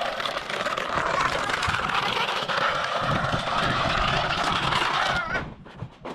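Plastic crate with a small child in it dragged across a concrete slab, a steady scraping that stops about five seconds in.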